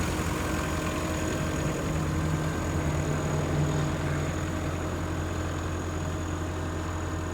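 Caterpillar 257B skid steer's diesel engine idling steadily.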